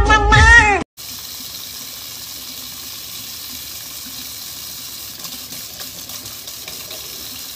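Kitchen faucet running a thin, steady stream of water into a sink basin, a constant hiss of flowing water. It begins about a second in, after the tail end of loud music is cut off.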